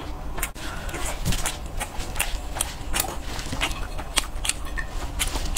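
Close-miked eating sounds from chewing fried skewered food: an irregular run of mouth clicks and smacks, several a second, over a steady low hum.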